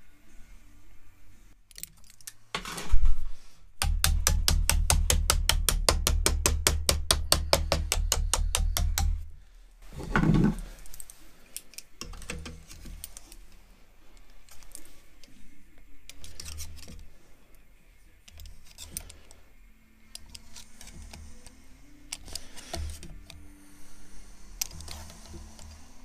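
Hand flanging pliers clicking and scraping as they bend the aluminium rib flange over a wooden form block, with scattered small clicks and metal creaks. Near the start comes a loud knock, then a fast, even rattle of about eight beats a second lasting some five seconds, then another knock.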